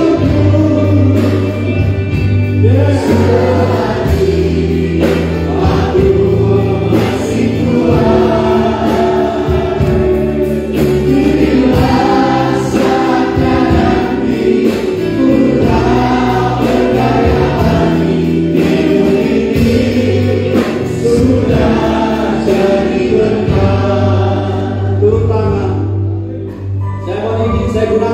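Live gospel worship song: a man leads the singing through a microphone with backing singers, over instrumental accompaniment with long sustained bass notes.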